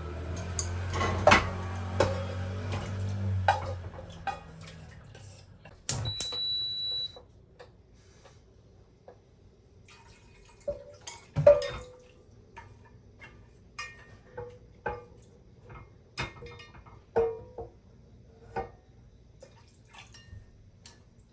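Kitchen clatter: pots, dishes and utensils knocking and clinking. Water runs with a low hum over the first four seconds, a steady high beep sounds for about a second roughly six seconds in, and then come scattered clinks.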